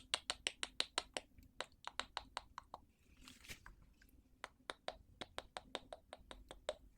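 Tweezers clicking in quick succession, about five sharp clicks a second, with a short soft rustle a little after three seconds before the clicking resumes.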